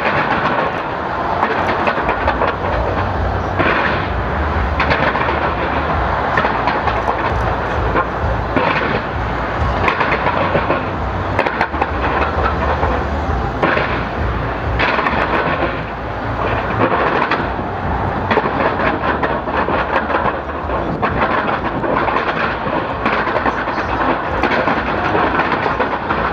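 Fireworks display: a dense, continuous barrage of aerial shell bursts and crackling, the bangs overlapping with no pause.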